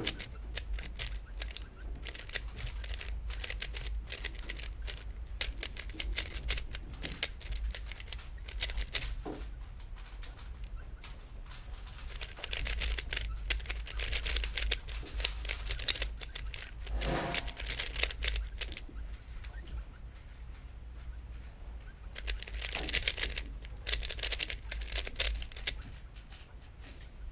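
A 3x3 speedcube being turned by hand during blindfolded execution: rapid runs of plastic clicking from the layer turns, in bursts with short pauses between them.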